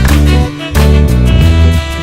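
Instrumental background music with a steady beat and strong bass notes.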